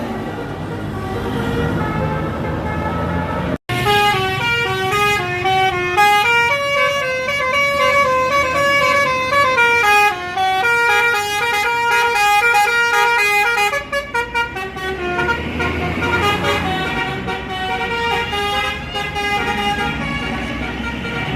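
Bus 'telolet' horn, a multi-trumpet basuri-type air horn, playing a melody of shifting chords for about ten seconds, after a sudden break a few seconds in. Road traffic and a bus engine are heard around it.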